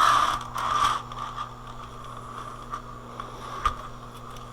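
Scraping and handling noise from a DVD player's parts being worked on, loudest in the first second, followed by scattered light clicks, over a steady low hum.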